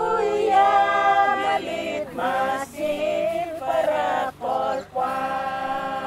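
A group of voices singing together in long held notes, in phrases broken by short pauses, over a steady low hum.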